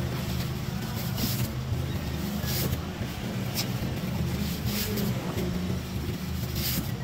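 Thin clear plastic bag crinkling in several short rustles as it is handled, over a steady low engine-like rumble.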